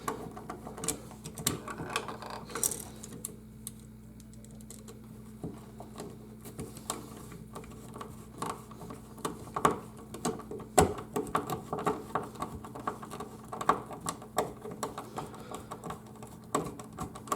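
Irregular clicks, taps and light knocks of a light switch being handled and pushed back into its wall box, with one louder knock about 11 seconds in, over a faint steady hum.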